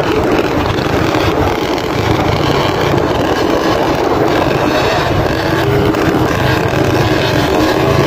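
Dirt bike engines running steadily at riding speed, heard from one of the bikes in a moving group.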